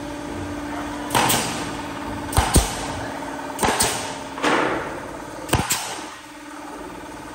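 Pneumatic nail gun firing nails into a wooden beam: about five sharp shots, two of them in quick pairs, with bursts of air hiss between them and a steady low hum underneath.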